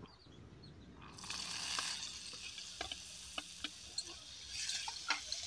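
Chopped cauliflower, carrots and beans start sizzling faintly about a second in, as they drop into hot oil in an iron kadai. They are then stirred with a metal spatula, which gives scattered scraping clicks against the pan.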